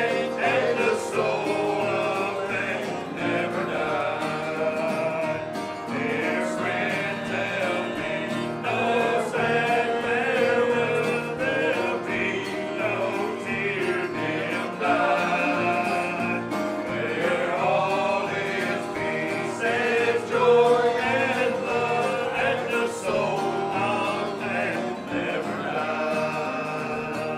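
A small group of men singing a gospel hymn together, accompanied by acoustic guitar and piano.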